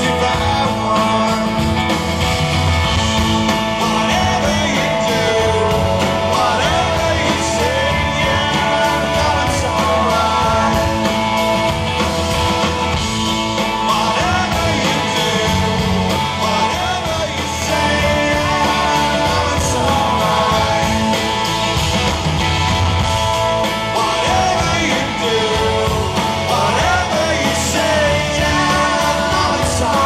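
Live rock band playing, recorded from the audience: a lead vocal over acoustic guitar, electric bass, electric guitar, keyboard and drums, loud and steady throughout.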